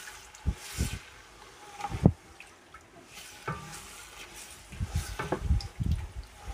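Wooden spoon stirring a thick tomato and pepper sauce with onions in a metal pot: wet squelching and scattered knocks of the spoon against the pot, a few at first and coming thicker and faster in the last couple of seconds.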